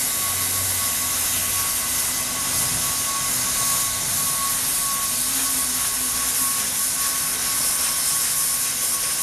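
Hand-held hot-air plastic welder blowing steadily while heat-welding TPO roofing membrane: an even rush of hot air with a faint, steady motor whine.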